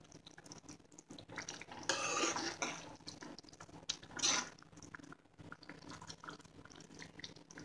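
A metal ladle stirring a thick, wet chickpea curry in a steel kadai, with the loudest strokes about two seconds in and again around four seconds.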